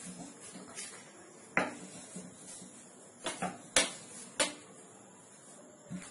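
Wooden rolling pin knocking and clattering on a steel plate while roti dough is rolled out: about five sharp, irregular clacks, the loudest a little under four seconds in.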